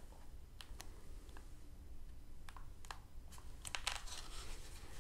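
Pages of a large picture book being handled and turned: faint paper rustles and small taps, a few more of them in the second half.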